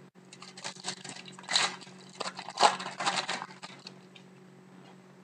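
Foil trading-card pack wrapper being torn open and crinkled by hand as the cards are pulled out: a run of crackling rustles lasting about three seconds, loudest in the middle.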